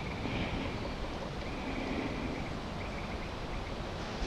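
Steady outdoor background noise with a fluctuating low rumble and faint, broken high-pitched tones.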